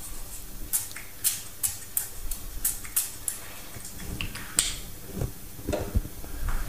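Cooking spray oil bottle being pumped over a lined baking dish: about eight short hissing sprays, roughly three a second, then one more a little later. A few soft knocks follow near the end.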